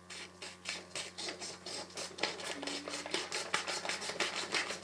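Quick, repeated scratching strokes, getting busier and louder after about a second.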